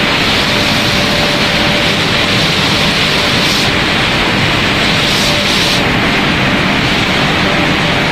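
Snack pellet extrusion production line running: a loud, steady machinery noise with a faint constant hum.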